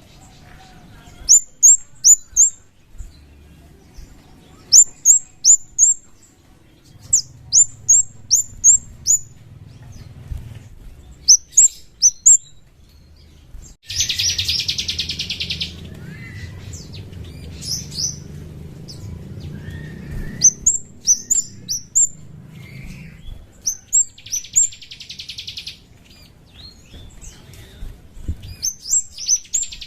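Kemade (scarlet-headed flowerpecker) song used as a lure: high, sharp, downward-slurred notes in quick runs of three to five, broken by three buzzing trills about two seconds long each. A low rumble sits beneath the song through the middle.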